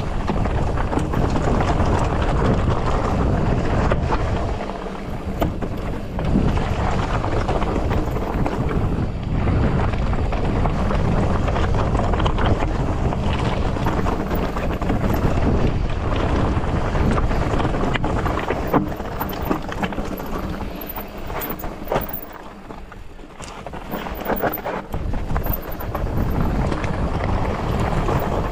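Wind rushing over the microphone as a Polygon Siskiu T8 mountain bike rides down a rocky trail, with its tyres rolling over loose rock and the bike clattering and knocking over the bumps. The noise eases for a couple of seconds about three quarters of the way through.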